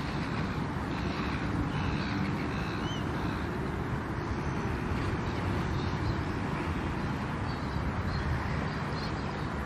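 Steady low rumbling outdoor noise, mostly wind buffeting the microphone, with a few faint high chirps over it.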